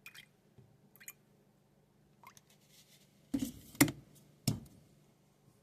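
Coffee creamer being added to a cup by hand: a few faint clicks, then a short louder stretch of liquid and handling noise with two sharp knocks a few seconds in.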